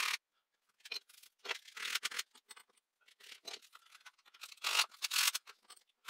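Sandpaper rubbed by hand over a small lime wood (basswood) carving, in short scratchy strokes of uneven length with brief pauses between them, the strongest strokes about five seconds in.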